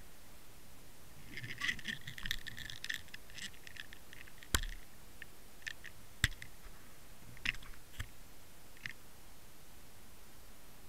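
Underwater fishing-camera rig knocking and scraping as it is jostled near the seabed: a patch of scratchy crackles and clicks, then three sharp knocks, the loudest about six seconds in, over a low steady hiss.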